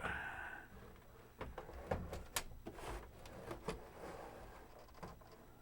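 Scattered light clicks and knocks of a Commodore 1571 floppy drive being handled and set down.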